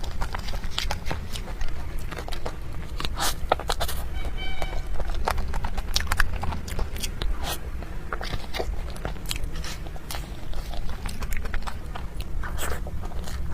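Close-miked mouth sounds of someone chewing a sticky, chewy sweet such as mochi: irregular wet clicks and smacks, with a steady low rumble underneath.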